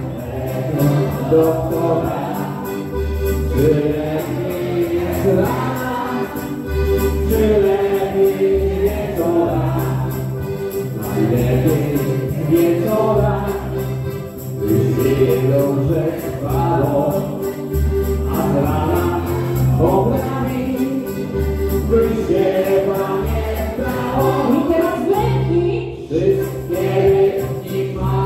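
Live wedding band playing a Polish biesiada table song: accordion and electric bass guitar with several voices singing together over a steady bass line.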